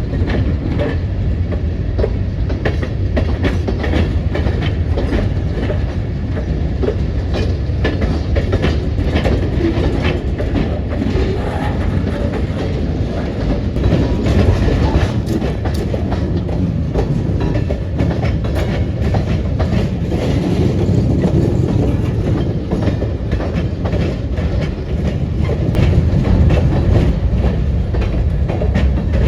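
CSX freight train rolling past, with a steady low rumble and the quick, irregular clicking of wheels over rail joints.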